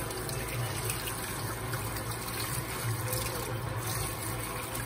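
Kitchen tap running in a steady stream onto goat intestine being rinsed by hand over a steel basin of water in a stainless-steel sink, with a steady low hum underneath.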